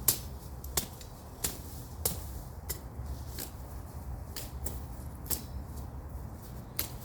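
Machete chopping brush and small tree stems: about ten sharp cuts at an uneven pace, roughly one every half to three-quarters of a second.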